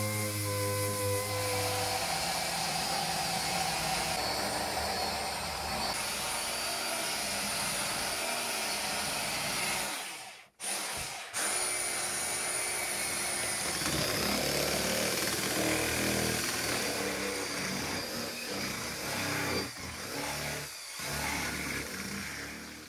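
Power tool running steadily on the workpiece, with a brief break about ten seconds in before it carries on.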